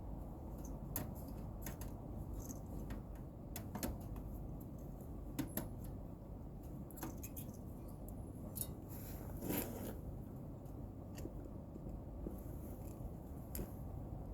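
Scattered small clicks and scrapes of tools and parts being handled during repair work on an air-conditioner outdoor unit, with a longer scrape a little past halfway, over a steady low rumble.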